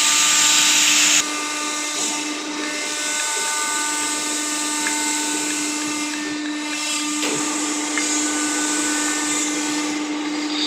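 CNC router spindle running at a steady speed with a constant whine, cutting. About a second in the hiss drops and the sound gets quieter.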